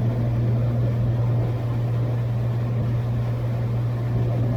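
Cessna 182's single piston engine and propeller droning steadily in the cockpit during descent on approach.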